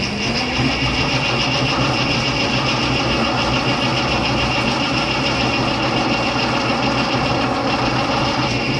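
Old cast-iron floor drill press running steadily as its bit drills into a metal part clamped in a vise, with a steady high-pitched cutting whine over the motor hum.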